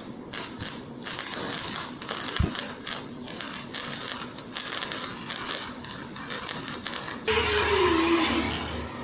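Arc welding on steel: an irregular, steady crackle of the arc for about seven seconds. Near the end it gives way to a louder hiss with a falling tone over a low hum.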